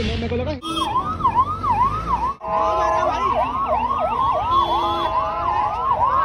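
Ambulance sirens in a fast yelp, swooping down and up about three times a second. A single siren at first, then from about two seconds in two or more sirens overlap out of step.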